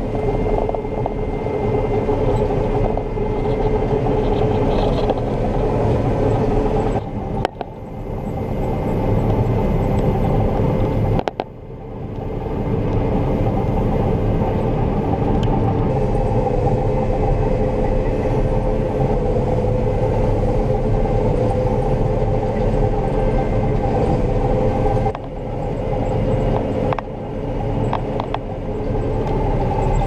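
John Deere 9500 combine running steadily while harvesting soybeans: a constant engine and threshing drone with a deep rumble and a steady hum. The sound drops out briefly and comes back a little changed in pitch three times.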